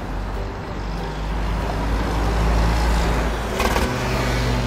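Car engine running, swelling louder toward the middle, with a short clatter about three and a half seconds in.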